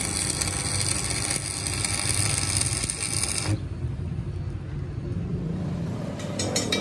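Stick (electrode) arc welding on a steel truck rim: a broad crackling hiss over a steady low rumble. About halfway through, the hiss cuts off abruptly and the rumble goes on alone.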